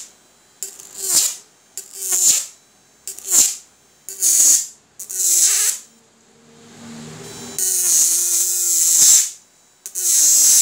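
High-voltage electric arc from a 12 V to 1200 V fishing-shocker inverter, drawn between two steel bars. It comes as about seven harsh buzzing bursts, each half a second to a second and a half long, and the pitch sags as each arc is drawn out. A lower, quieter hum fills one longer gap a little past the middle.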